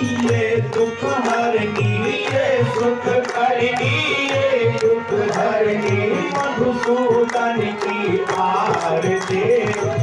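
Hindu devotional aarti music: a sung melody over held notes, with tabla drum strokes and an even run of bright clicks keeping the beat.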